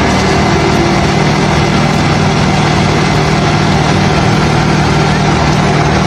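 Concrete mixer truck's diesel engine running steadily while the truck discharges concrete down its chute.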